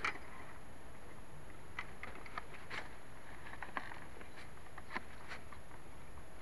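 Low steady hiss from a small camera microphone lying still in the grass, with a short click at the start and a few faint scattered ticks; the quadcopter's motors are not running.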